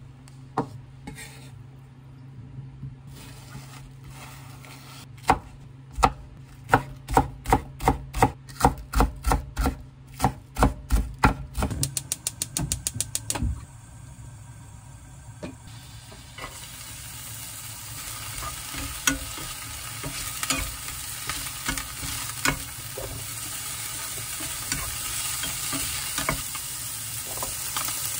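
A knife chopping on a wooden cutting board: evenly spaced strikes that speed up into a quick run. Then, from about midway, food frying in an oiled frying pan, the sizzle growing louder, with light clicks of a spatula.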